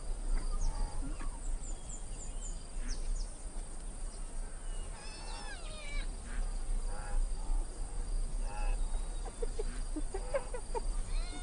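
Spotted hyenas calling: short calls that rise and fall in pitch, several overlapping about halfway through and more near the end, with softer squeaks between.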